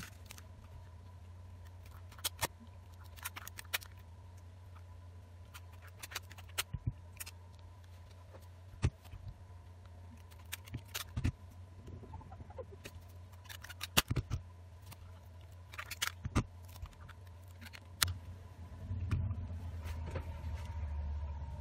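Scattered sharp clicks and taps from handling a smartphone while rubber bands are stretched and wrapped around it, over a steady low hum.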